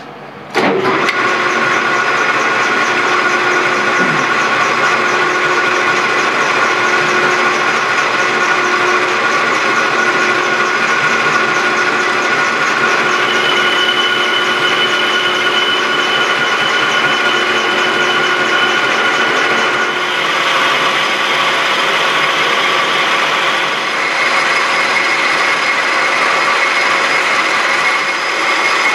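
1967 South Bend 13-inch lathe starting up about half a second in and running steadily, while a carbide insert cuts a bar of 1215 free-machining steel in the four-jaw chuck, first facing the end and then turning the diameter down. The pitch of the cut shifts a few times, about halfway through and again near the end.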